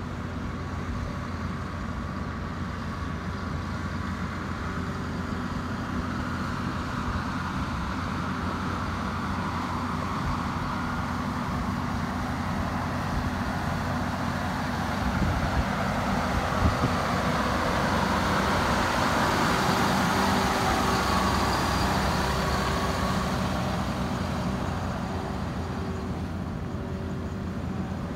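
2014 RoGator RG1300 self-propelled sprayer's diesel engine running as the machine drives across the yard. It grows louder as it comes near, is loudest about two-thirds of the way through, then fades as it pulls away.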